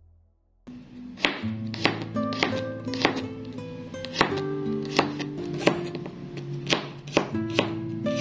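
Knife chopping on a cutting board, sharp strokes at roughly one to two a second, over background music. It starts just under a second in, after a brief silent gap.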